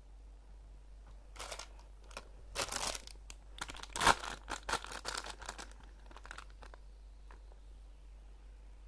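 Clear plastic packaging bag of a squishy toy crinkling as it is handled, in a run of irregular crackles that starts about a second in and dies away near the end, loudest in the middle.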